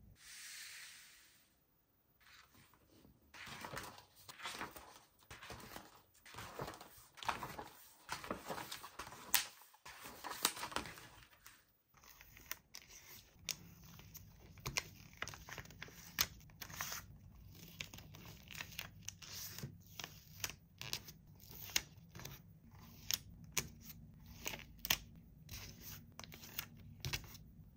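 Toy packaging being opened by hand: bursts of tearing and crinkling, then, after an abrupt change at about twelve seconds, a long run of sharp clicks and taps.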